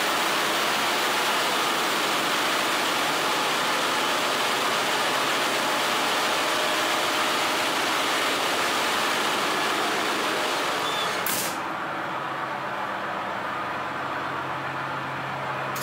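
Loud, steady noise of a ship's engine-room machinery. About eleven seconds in there is a short click, and the noise drops and turns muffled, leaving a steadier low hum.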